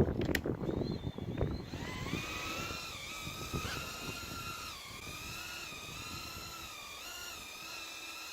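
Eachine Lizard95 micro quadcopter's 1104 6000 kV brushless motors and propellers whining in a test flight after a motor replacement, the pitch wavering slightly with throttle. A few knocks come in the first second or so, before the whine starts about two seconds in.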